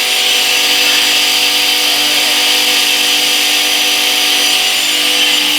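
Homemade semi-automatic stone-cutting saw running steadily as its blade cuts through stone, a constant motor hum under a loud, even grinding hiss.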